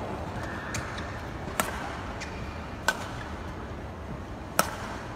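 Badminton rackets striking a shuttlecock in a fast rally: three sharp hits about a second and a half apart, and a fainter one near the start, over steady arena background noise.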